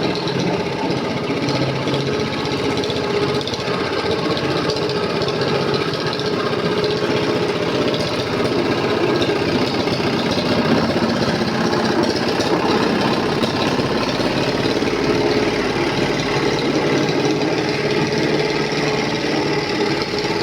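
Small engine-driven vibratory roller compactor running steadily.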